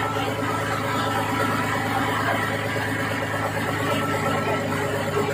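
River ferry's engine running steadily, an even hum that neither rises nor falls.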